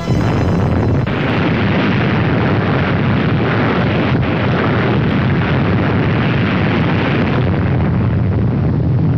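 Fire sound effect: a steady, dense rumbling noise like a large blaze, laid under an animated intro.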